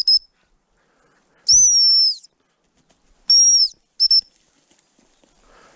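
Gundog whistle blown in four blasts: a short pip, a long blast about a second and a half in, a shorter one past three seconds and a quick pip just after, each a high steady tone that dips slightly as it ends. Faint rustling in the brush comes in near the end.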